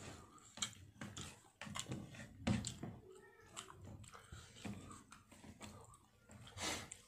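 A person eating rice and fish by hand, close to the microphone: chewing with irregular wet mouth clicks and lip smacks.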